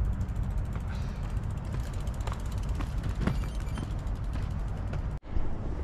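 A loaded touring bicycle being pushed uphill on foot: the freewheel ticks rapidly as the rear wheel turns, with the bike creaking and a few footsteps on asphalt, over a steady low rumble.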